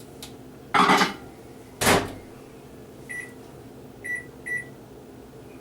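A microwave oven door is shut with a loud clunk about a second in, followed by another knock, then three short keypad beeps as the cook time is entered.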